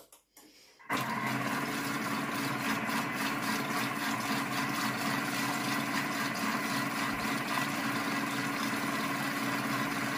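Thermomix TM6 running at speed 4, its blade mixing an egg-and-milk mixture in the steel bowl for a 10-second run. The motor starts about a second in and runs at a steady pitch.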